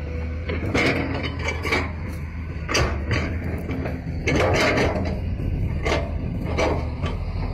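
Toy remote-control excavator's electric motors running as the arm and bucket move, over a steady low hum, with short sharp clicks and knocks about every second.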